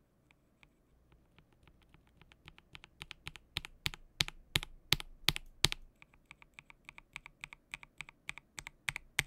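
Typing on a KBD67 Lite 65% mechanical keyboard with lubed switches on a polycarbonate plate: a steady run of keystrokes, about three to four a second. The keystrokes start faint and grow loud over the first three seconds.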